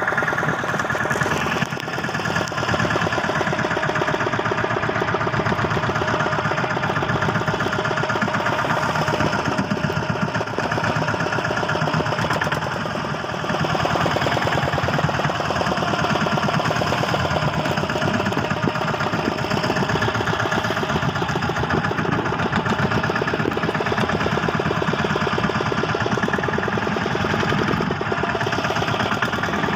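Fishing boat's engine running steadily, with a fast even beat.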